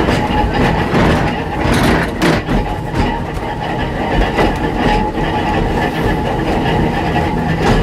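Old electric narrow-gauge tramcar running along its track, heard from inside the driver's cab: a steady rumble of wheels on rails with clicks over rail joints and a faint steady whine.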